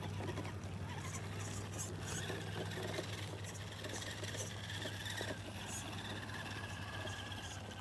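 Remo Hobby 1/10 RC crawler driving slowly: a faint whine from its electric motor and drivetrain that rises and falls a little, with scattered small clicks and knocks, over a steady low hum.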